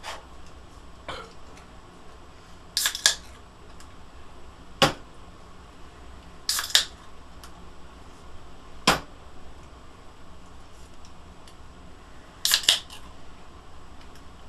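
Five sharp clicks and knocks a couple of seconds apart in a small room: three quick double clicks and two single heavier knocks.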